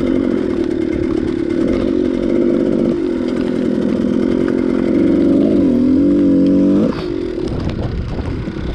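Dirt bike engine running as the bike is ridden over rough trail ground. The engine picks up in pitch for a couple of seconds, then drops away suddenly as the throttle closes, about seven seconds in.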